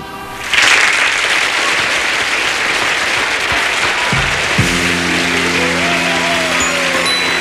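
Studio audience applauding at the end of a song, starting about half a second in. About halfway through, the band comes in with a held closing chord under the applause.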